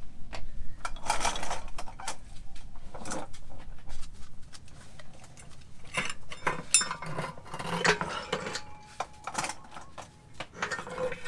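Irregular clinks and knocks of metal parts being handled: a removed driveshaft and its U-joint yoke being picked up and moved about.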